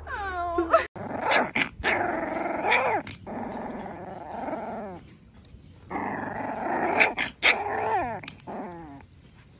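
Small black-and-tan puppy growling at a finger, with short high yelps breaking through, in two spells with a short lull about halfway.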